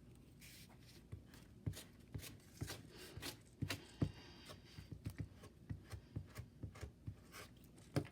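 Quiet handling of paper: a strip of adding machine tape being laid and pressed onto a glued paper tag, with many light, irregular taps and soft rustles.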